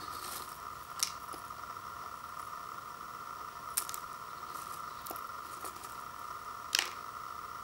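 Fingers poking through dry instant ramen noodles and dried wontons in a paper bowl: a few faint crisp crackles, the sharpest about a second in, near four seconds and near seven seconds, over a steady hum.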